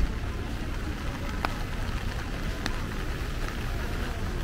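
Rainy city street: steady rain and the hiss and rumble of traffic on wet roads, with two brief sharp clicks about a second apart.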